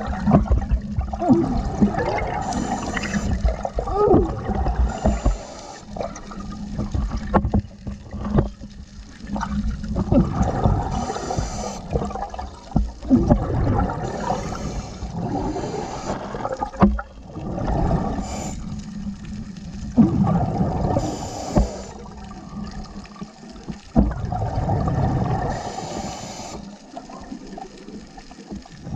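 Scuba diver's regulator breathing heard underwater: gurgling surges of exhaled bubbles every few seconds over a low rumble of water on the camera housing.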